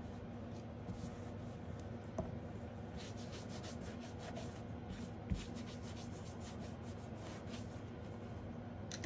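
Faint handling of a nail stamping plate in its holder: scratchy rubbing and sliding strokes in short runs, with a small click about two seconds in and a soft thump about five seconds in.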